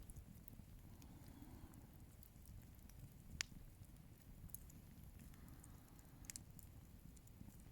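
Bonfire crackling faintly: scattered sharp pops, the loudest about three and a half seconds in, over a low rumble.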